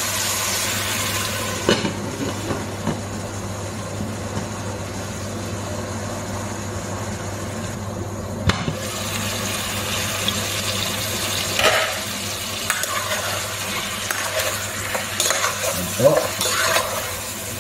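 Chicken sizzling as it sautés in a pot. After a clink about two seconds in the sizzle sounds duller, as if under a lid; later it is brighter again, with a spoon knocking and scraping against the pot near the end as the chicken is stirred. A steady low hum runs underneath.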